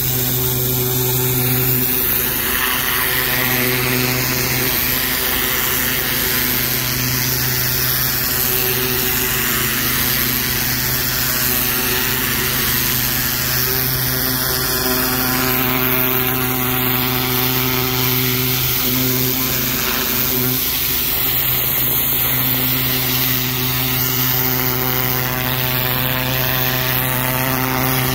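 Pressure washer's engine running steadily at a constant pitch, with the hiss of the high-pressure water jet blasting against brick.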